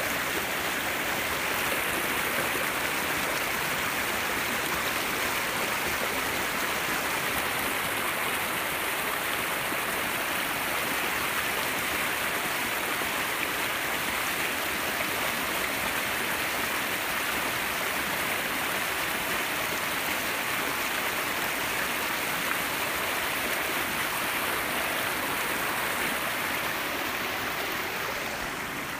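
Steady rushing of flowing water, an even sound with no tune or voice in it, dropping a little in level near the end.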